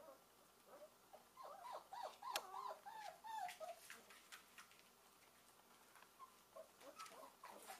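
German Shepherd puppy whining faintly: a run of short, high calls that slide up and down from about a second and a half in for two seconds, then a few more near the end, with a few light clicks among them.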